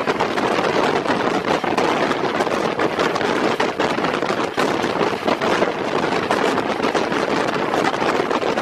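A train running fast, heard from an open window: a heavy wind rush over the microphone, with the clatter and frequent short knocks of the wheels on the track.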